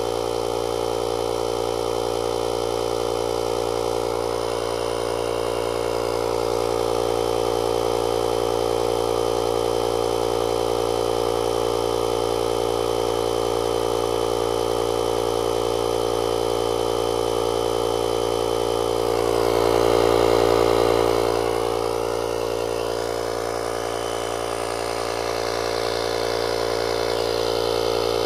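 The 12-volt air compressor built into a JFEGWO 6000A jump starter running steadily, a droning motor-and-pump sound as it inflates a low trailer tire from about 10 to 15 PSI. The sound swells briefly louder about twenty seconds in.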